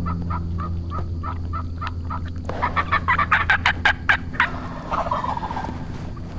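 Wild turkey yelping in an even series of notes, a few a second, then an Osceola gobbler gobbling, a loud rapid rattle about two and a half seconds in, followed by a shorter falling chatter. A steady low hum runs underneath.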